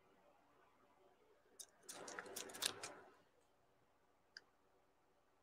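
Near silence broken by a short cluster of light clicks and rattling about two seconds in, with a single click just before it and another near the end.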